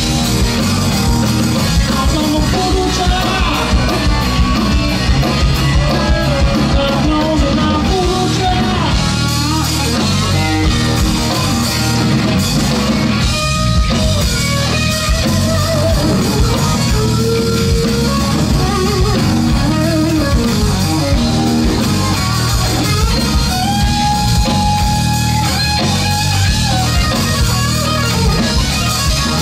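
Live rock band playing: an electric guitar lead with bent and held notes over bass guitar and drum kit.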